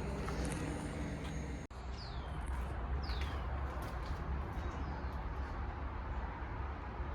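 Outdoor ambience: a steady low rumble with a small bird giving two short chirps that slide downward in pitch, about two and three seconds in. The sound cuts out for an instant just before the first chirp.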